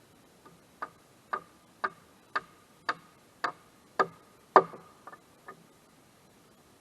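A series of about ten sharp ticks, roughly two a second, growing louder to a peak about two-thirds of the way through, then two fainter ones before they stop.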